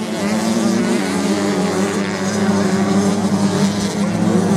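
Several off-road racing motorcycles running hard together, their engine notes overlapping and wavering as the riders work the throttle through the turns.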